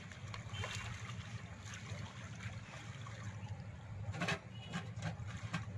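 Water splashing and sloshing as a fishing net is gathered up by hand by people wading in shallow pond water, with a cluster of sharper splashes about four seconds in. A steady low rumble runs underneath.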